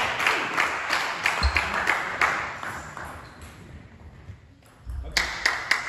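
Table tennis ball clicking against tables and bats, a quick run of sharp ticks several a second that thins out after about three seconds. A short quiet stretch follows before the ticks start again about five seconds in.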